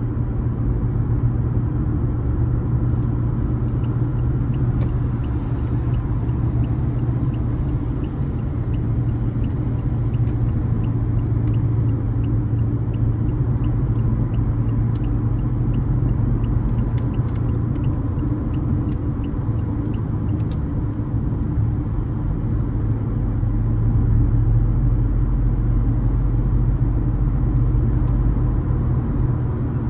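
Car driving on the road: a steady low rumble of engine and tyre noise, slightly louder in the last quarter. A faint regular ticking, about twice a second, runs through the first two-thirds.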